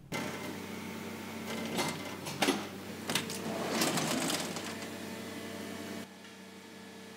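KraussMaffei plastic injection moulding press running: a steady hum with several fixed tones, two sharp clicks about two seconds in, and a louder rushing swell around three to four seconds. The sound drops quieter about six seconds in.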